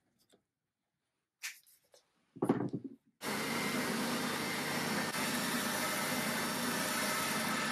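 A couple of light knocks, then a little over three seconds in a benchtop oscillating belt sander switches on and runs steadily.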